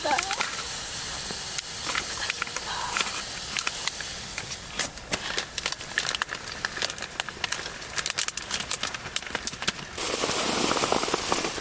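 Hot&Cook self-heating meal box reacting after water is added to its heater pack: a steady hiss of venting steam with many small crackles and pops. Near the end a louder rustle of plastic packaging being handled.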